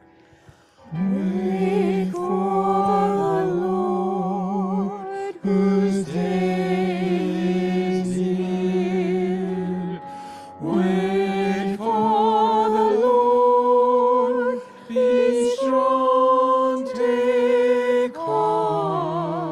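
A slow hymn sung in phrases of a few seconds, with long held notes that waver with vibrato and short breaks between phrases, over a steady low sustained note.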